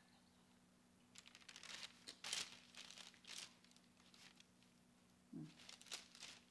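Baking paper on a cookie sheet rustling and crinkling under hands and a spoon as cookie dough is portioned onto it, in short bursts: a cluster starting about a second in and another near the end.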